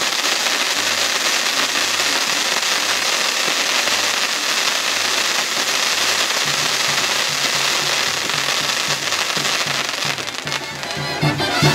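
Pyrotechnic castillo tower burning: a dense, continuous crackle and hiss of sparks. A brass band's steady bass beat plays underneath, and the band grows louder near the end as the crackling dies down.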